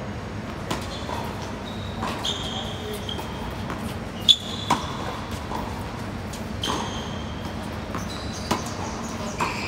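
Doubles tennis on a hard court: a serve and then a rally, sharp pops of racquets striking the ball and the ball bouncing every second or two, the loudest hit about four seconds in. Short high squeaks of shoes on the court come between the hits.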